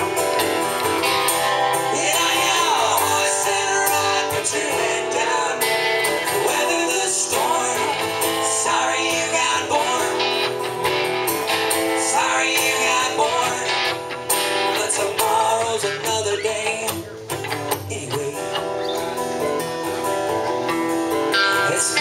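Live acoustic guitar strumming together with an electric guitar playing lines over it, in an instrumental passage of the song.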